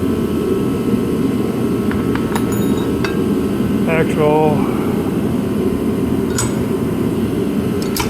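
Several light metallic clinks of steel girder-fork parts being handled and fitted together, a couple of them ringing briefly, over a steady low background rumble.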